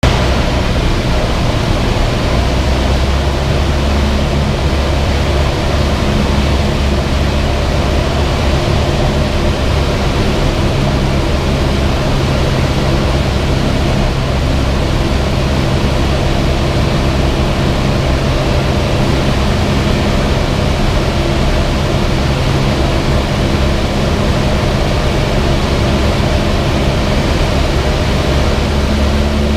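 Cessna 172's piston engine droning at a steady pitch under a constant rush of air noise.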